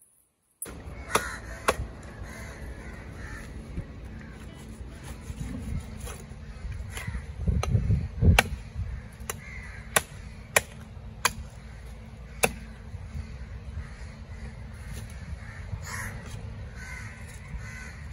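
Heavy cleaver chopping into a giant trevally's head on a wooden log block: about ten sharp chops at irregular intervals, with a heavier run of thuds in the middle as the head is worked. Crows caw in the background.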